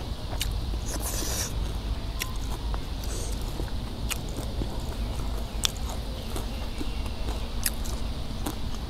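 Close-miked chewing of soft steamed fish, with scattered sharp mouth clicks and two brief rustles of food being handled, about one and three seconds in.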